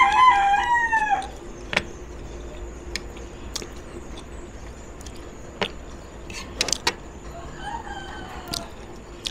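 A rooster crowing: one crow trailing off at the start and a fainter crow about eight seconds in. Between them come a few sharp clinks of a spoon and fork against a plate.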